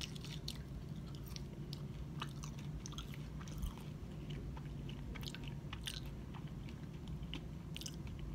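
A person chewing French fries: soft, irregular little clicks and smacks of chewing over a steady low hum.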